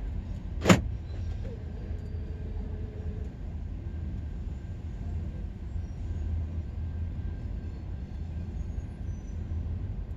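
Car running, heard from inside the cabin as a steady low rumble, with one sharp knock about a second in.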